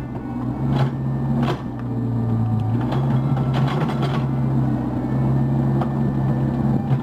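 Cat 304 mini excavator's diesel engine running steadily, its pitch sagging briefly a little after two seconds, with several sharp metallic knocks.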